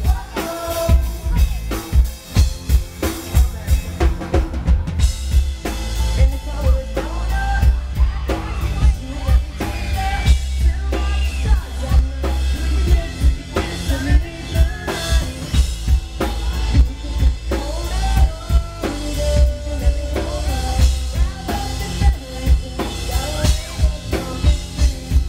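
Live pop-rock band playing: a drum kit beating steadily with kick and snare, under electric guitars, bass guitar and keyboard, recorded from the crowd.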